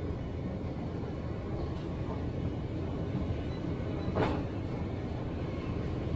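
Steady low rumble of shop background noise, with one short knock about four seconds in.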